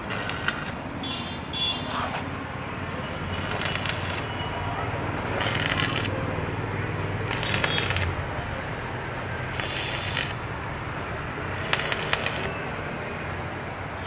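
Stick welder's arc crackling in short bursts, about one every two seconds, as a motorcycle exhaust pipe is welded, over a steady low hum.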